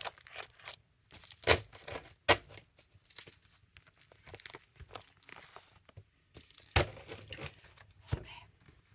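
Tarot cards being handled and shuffled: soft rustling and crinkling with a few sharp snaps of cards, two close together a couple of seconds in and one more about seven seconds in.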